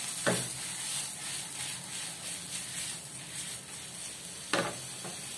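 Chinese kale, onion and salted fish sizzling in oil in a frying pan. Twice, once just after the start and once near the end, a brief louder swish as the pan is tossed.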